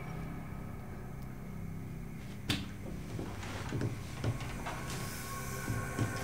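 A low steady hum, with a sharp knock about two and a half seconds in and a few softer thumps after it.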